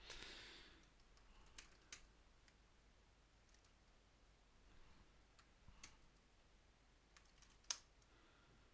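Faint computer keyboard keystrokes: a few sparse, separate key clicks, the loudest near the end, as a short command is typed at a terminal.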